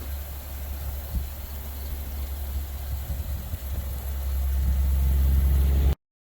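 Low steady rumble that grows louder about four and a half seconds in, then cuts off abruptly.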